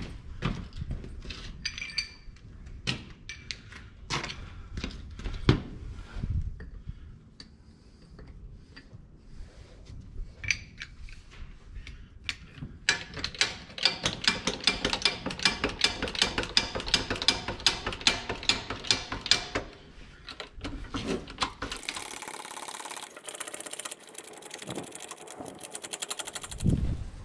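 Hydraulic bottle jack being set under a tractor and worked with its steel handle. First come scattered metal clicks and knocks, then about halfway through a run of rapid, even clicking, several a second, and near the end a faster, thinner ticking.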